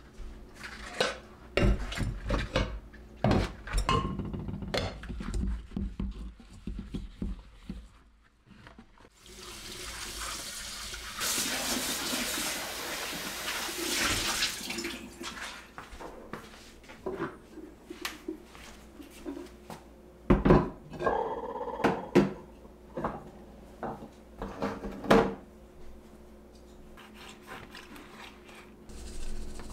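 Ceramic pots being washed in a stainless-steel kitchen sink: hard clunks and clatters of the pots against the sink, a tap running for several seconds in the middle, then more clunks.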